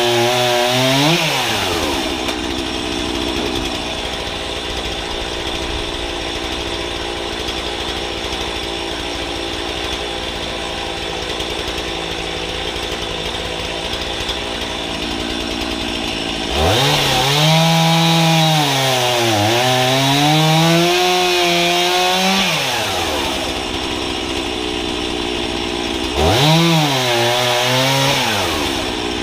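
Two-stroke chainsaw bucking logs into firewood lengths: it finishes one cut and drops to a steady idle for about fifteen seconds, then revs up and sags under load through a long cut, returns to idle, and revs into another cut near the end.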